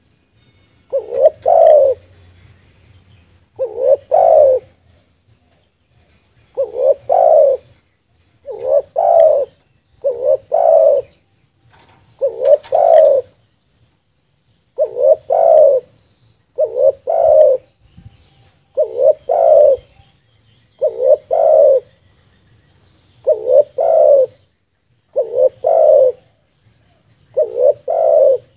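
Spotted dove (tekukur) cooing over and over. Each phrase is a short, quick multi-note coo, repeated about every two seconds.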